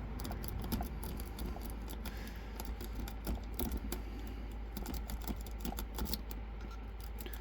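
A pick raked back and forth through the pin stack of a Hyper Tough padlock, with a tension wrench in the keyway: a fast, uneven run of small metallic clicks and scratches as the pins are bounced, the lock not yet open.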